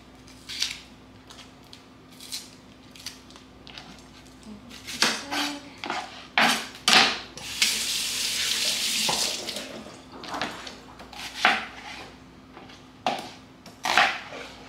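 Kitchen work at a counter: scattered knocks and clinks of utensils and dishes, with a faucet running for about two seconds around the middle.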